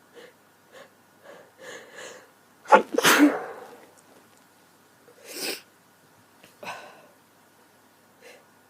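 A woman sneezing from a head cold: a few short, quickening breaths build up to one loud sneeze about three seconds in, followed by a few softer breaths. The sneeze is part of a sneezing fit brought on by the cold.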